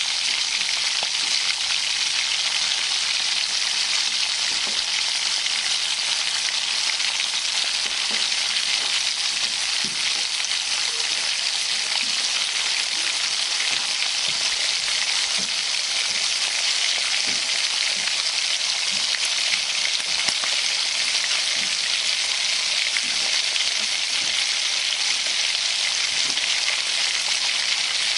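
Bacon sizzling in a frying pan, a steady dense crackle of hot fat with scattered small pops.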